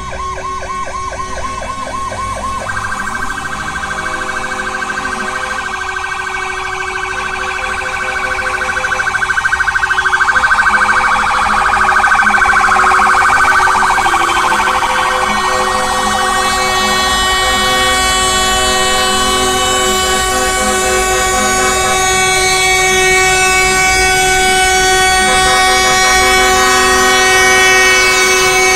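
Police pickup's electronic siren, a fast warble for the first few seconds, then a higher, rapidly pulsing wail that grows louder as it passes. From about halfway, steady held horn blasts take over, the air horns of the approaching convoy of cement tanker trucks.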